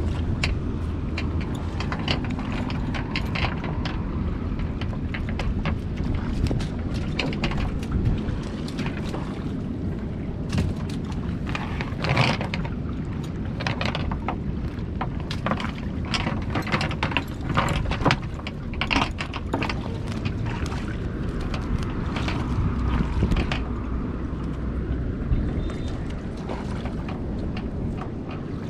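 Wet cast net being handled and cleared of fish in a canoe: irregular clicks, taps and small splashes, busiest through the middle, over a steady low rumble of wind on the microphone and water against the hull.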